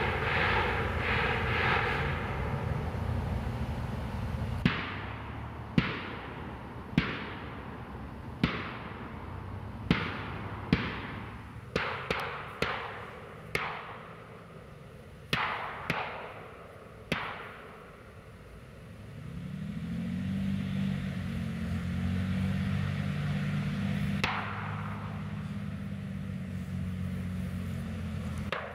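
A run of about fourteen sharp bangs, irregularly spaced over some twelve seconds, each with a short echoing tail. A vehicle engine then comes in and runs steadily, with one more bang near the end.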